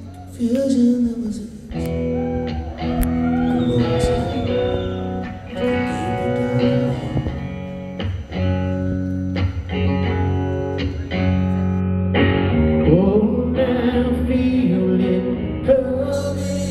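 Live rock band playing in a concert hall, heard from the audience: strummed electric guitar chords over bass and drums, with a male lead singer's voice gliding over the held chords.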